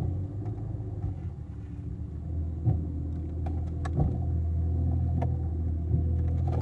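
1993 Jeep Cherokee engine idling steadily on fresh spark plugs, a smooth idle where it used to run rough, with a few short clicks partway through.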